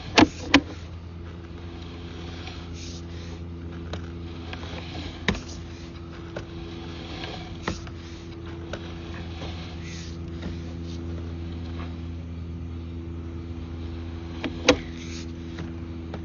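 A machine running with a steady hum, with a few short sharp knocks over it: two right at the start, single ones around five and eight seconds in, and two close together near the end.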